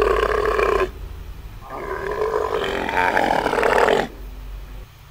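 Camel calling: two long, drawn-out pitched calls, the first ending about a second in and the second lasting from about two to four seconds in.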